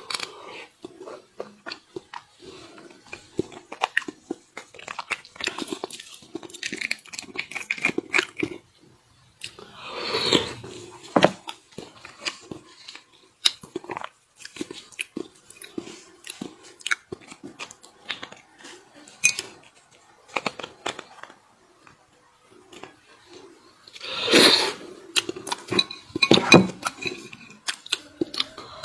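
Close-miked mouth sounds of a person eating bone marrow: many short wet clicks and smacks of chewing and biting. Twice, about ten seconds in and again near the end, come louder, longer noisy stretches.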